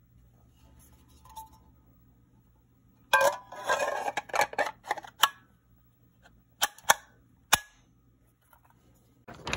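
Big Bang Airguns M4 CO2 BB rifle firing at a paper target: a fast string of sharp shots for about two seconds starting three seconds in, then three single shots, and another quick string at the very end.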